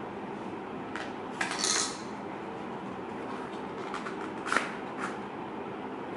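Hands handling a laptop's power adapter, its cable and small packaging pieces on a tiled floor: a click about a second in, a short rustle just after, then two sharper clicks later, the second of them the loudest sound. Underneath is a steady background hum.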